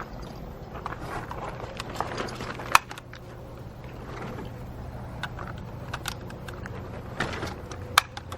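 Shotgun shells being pushed into the shotgun's magazine, with a few sharp metallic clicks as each shell seats.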